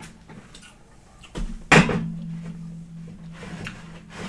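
A single loud, sharp crack of Dungeness crab shell being broken apart by hand, a little under two seconds in, followed by a low steady hum.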